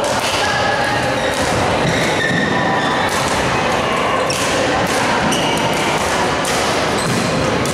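Badminton rally: a string of sharp racket strikes on the shuttlecock at irregular intervals, mixed with short squeaks of court shoes on the floor, over steady background noise.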